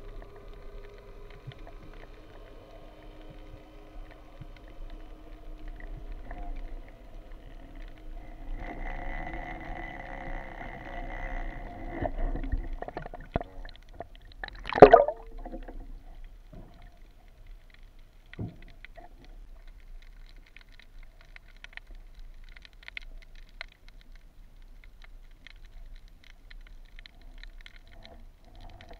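Underwater recording of a boat engine's hum carried through the water, strongest for a few seconds just before halfway. About halfway there is one loud, sharp knock, with a few smaller clicks after it.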